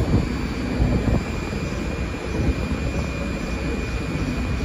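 R62A subway train standing at an elevated platform, its onboard equipment running: a steady hum and rumble with a faint, constant high whine.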